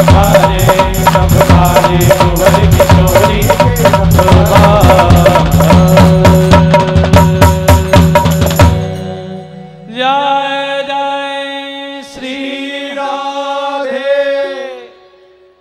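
Devotional bhajan band music: a fast, loud drum rhythm on Indian hand drums and a drum, with accompanying melody, cuts off suddenly about nine seconds in. A solo melody instrument then plays a phrase of held, gliding notes, which fades away near the end.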